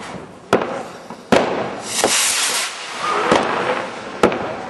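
Fireworks going off: about five sharp bangs spread across a few seconds, with a hissing rush of sparks about two seconds in.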